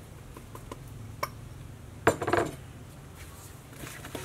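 Utensils clinking against a large aluminium basin while fish are being salted for cleaning: a few light clicks, then a louder ringing clatter about two seconds in.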